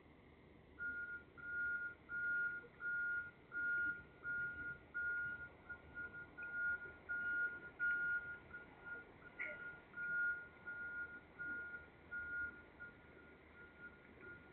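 Truck reversing alarm beeping about twice a second on a single high tone, starting about a second in. In the second half the beeps grow shorter and fainter.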